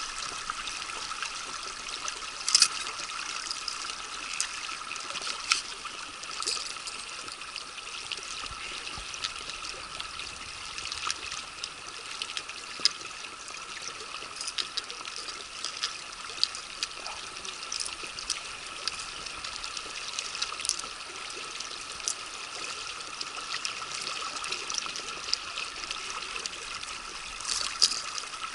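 River current running and trickling around a drifting inflatable boat, with scattered sharp clicks and taps.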